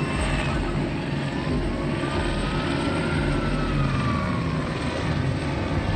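A steady mechanical hum with a low rumble, the kind of sound engines make, and a faint tone that rises and falls once over about three seconds.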